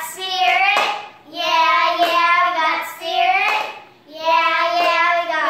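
Young girls singing a chant-like song in held, stepping notes, in phrases of about a second and a half with short breaths between, with a few sharp claps.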